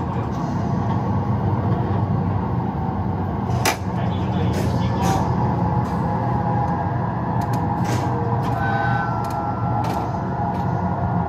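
Train-driving simulator playing an electric train's running sound through its speakers: a steady low hum with a few sharp clicks.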